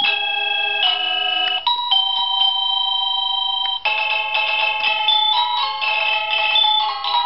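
SadoTech Starpoint wireless doorbell receivers ringing their electronic chime melodies as the newly paired buttons are tested. A few held chime notes come first, then from about four seconds in a quicker tune of stepping notes.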